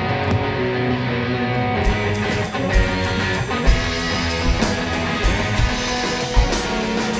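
A live rock band playing, with electric guitar to the fore over bass and drums. The kick drum and cymbal hits get heavier about two seconds in.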